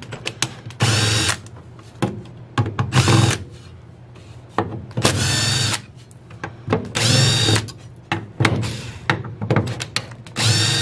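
Cordless drill/driver spinning in about five short bursts, each winding up quickly, as it backs small screws out of an automatic transmission valve body. Small metal clicks come between the bursts.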